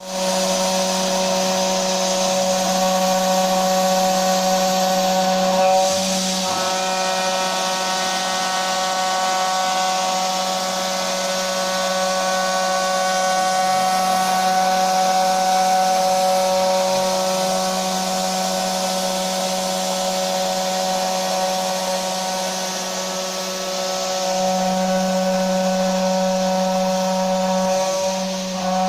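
Homemade CNC machine's spindle running steadily as it mills, a constant hum with a set of steady higher tones over a noisy hiss, the tone shifting briefly a few times.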